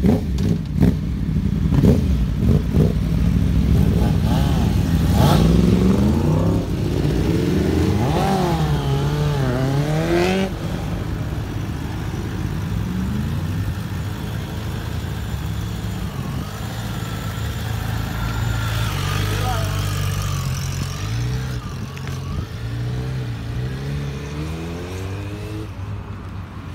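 Motorcycle engines running as several bikes pull away and ride slowly past, the engine note rising and falling with each blip of the throttle. The sound is loudest in the first ten seconds and fades toward the end.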